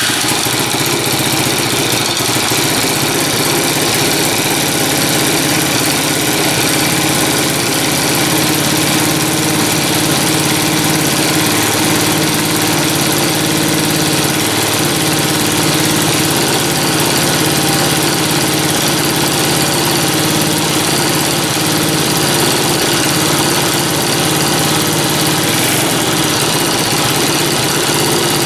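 Small 100cc single-cylinder engine of a Chinese quad ATV idling steadily just after being started, freshly fitted with a new carburettor.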